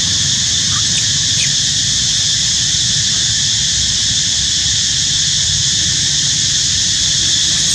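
Steady, loud insect chorus, with a low rumble underneath and a few faint short squeaks about a second in.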